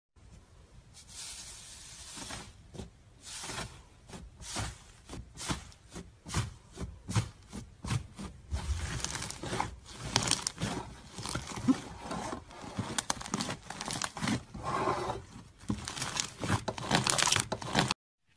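Blue slime being pressed and kneaded by hand, giving a dense run of crackling pops and squelches that grow busier and louder about halfway through. The sound cuts off abruptly just before the end.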